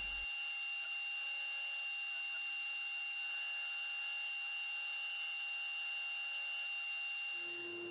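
Scroll saw running, its fine blade cutting through a thin wooden board along a paper pattern: a steady, even noise with a faint high tone. A low steady hum comes in near the end.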